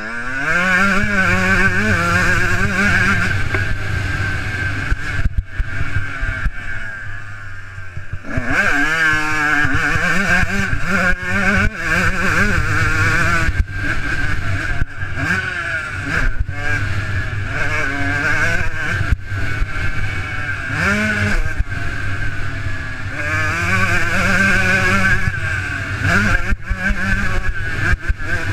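Motocross dirt bike engine heard from a helmet camera, revving up and easing off again and again as the rider accelerates, shifts and slows for turns. The revs fall away about five seconds in and climb hard again near eight seconds.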